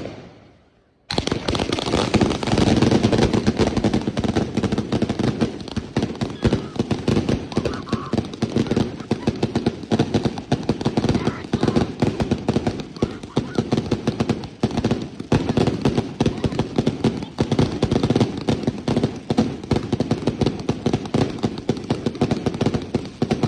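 Fireworks going off in a dense, rapid run of cracks and pops, too fast to count, starting suddenly about a second in and running on without a break for over twenty seconds.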